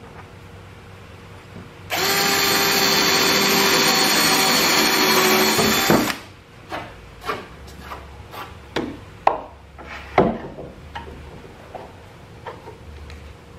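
Cordless DeWalt drill boring a countersink hole into a pine board: it runs steadily for about four seconds, starting about two seconds in, then stops. A string of light knocks and clicks follows.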